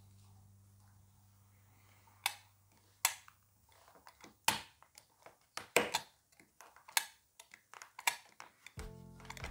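Utility knife blade cutting into the plastic tip of an eyeglass temple: a dozen or so sharp, irregular clicks as small bits are shaved off, coming closer together after about five seconds in. Background music starts near the end.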